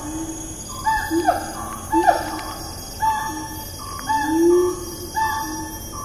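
Siamang calling: a run of short loud calls about once a second, several sliding down in pitch, with one longer note that rises and falls about four seconds in.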